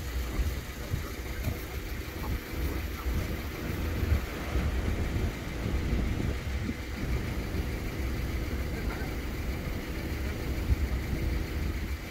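A steady low rumble of vehicles, with a couple of brief louder bumps.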